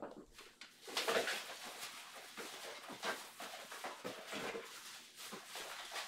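Rummaging and handling noises: rustling with light knocks and clicks in irregular bursts.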